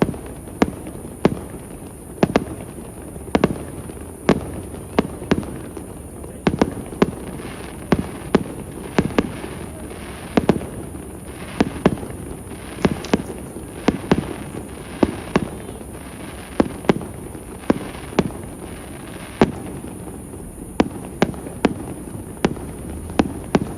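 Aerial fireworks bursting in a steady barrage, sharp bangs coming one to two a second with no let-up.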